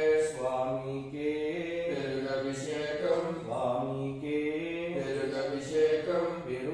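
A man's voice chanting Sanskrit mantras for an Ayyappa abhishekam, in long held notes of a steady recitation.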